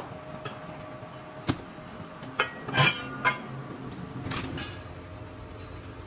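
A few sharp metallic clinks and knocks, the loudest a short cluster about three seconds in, over a faint steady hum: a spanner working on the steel spindle and frame of a hand-turned wire coiling reel.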